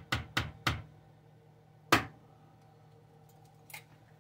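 Egg shell knocked against the edge of a plastic container to crack it: four quick sharp taps, then one louder knock about two seconds in, and a faint tap near the end.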